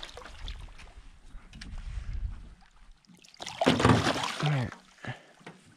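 A hooked bass thrashing and splashing at the surface beside a canoe as it is landed, with low sloshing against the hull. A bigger splash comes about three and a half seconds in, together with a short vocal exclamation.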